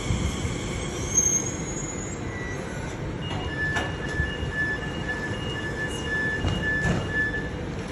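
Passenger train pulling in: a steady rumble of wheels on the rails with a brief high squeal about a second in and a few clunks. Through the second half a high tone pulses about twice a second.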